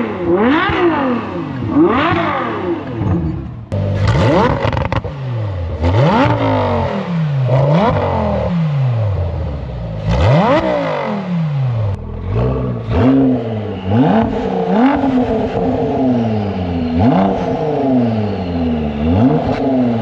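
Three supercars revved one after another, standing still, through QuickSilver sport exhausts: first a Ferrari 812's naturally aspirated V12, then from about four seconds in a Lamborghini Huracan EVO's V10, then from about twelve seconds in a Ford GT's twin-turbo V6. Each engine is blipped repeatedly, its pitch rising sharply and falling back.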